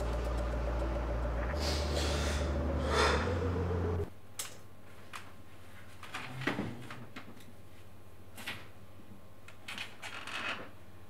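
A steady low hum under a man's sobbing breaths. About four seconds in it gives way to a quieter room with scattered light knocks and rustles as clothes and a wooden desk chair are handled.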